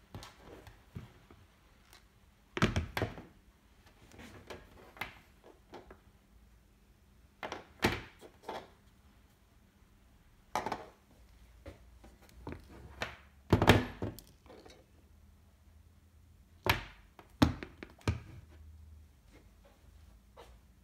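Handling noise: scattered thunks and clicks as rubber-sheathed mains cable, plastic plugs and a switched socket adapter are picked up, moved and set down on a table. The sounds come in short clusters a few seconds apart, the loudest around the middle.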